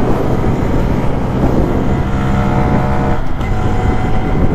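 Small motorcycle engine running under way at road speed, with a brief dip in the engine note about three seconds in.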